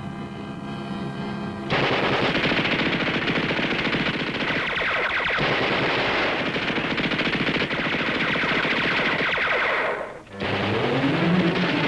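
Sustained automatic machine-gun fire in a long rapid burst, starting about two seconds in as dramatic music gives way to it. It breaks off briefly near the end, then resumes with music rising over it.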